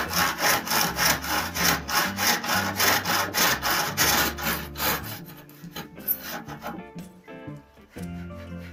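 Hand saw cutting back and forth along the seam between two clamped linden boards, about four strokes a second, stopping about five seconds in. The kerf is cut through the joint so that both edges come out straight and the seam closes tight. Background music continues underneath.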